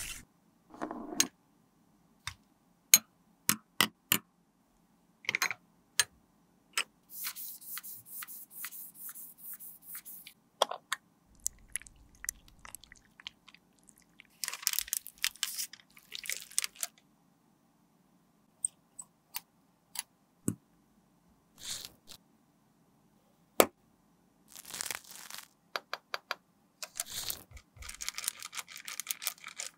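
Close handling of cosmetics: scattered sharp clicks and taps of plastic containers and lids, and stretches of sticky crackling as clear gel is worked in a jar. Near the end, a plastic bag crinkles and squishes steadily as fingers knead red makeup inside it.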